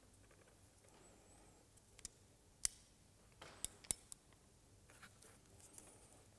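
Ratchet crimping tool clicking as a spade connector is crimped onto a wire: a few sharp clicks, the loudest about two and a half seconds in, then a quick run of clicks around four seconds.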